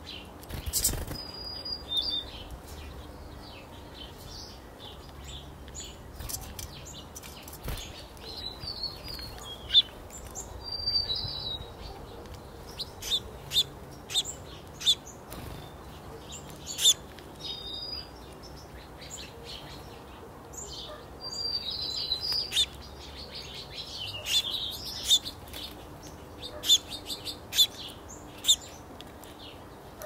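Small songbirds chirping and calling: many short, sharp high chirps and brief call notes at irregular intervals, with a busier stretch of twittering about three quarters of the way through.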